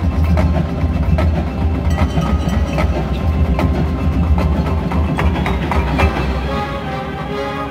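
High school marching band playing, led by percussion: sharp drum and wood-block hits over a heavy low bass, with held chords building near the end.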